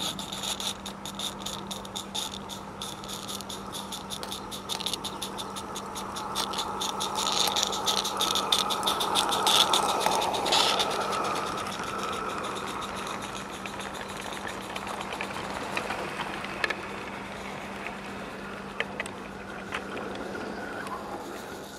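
A G-scale live-steam Roundhouse Fowler locomotive runs past with its freight wagons, their wheels clicking and rattling along the track. The locomotive has no chuffer fitted, so there is no exhaust beat. It is loudest about ten seconds in, then the rolling stock's rattle fades, with a few separate clicks near the end.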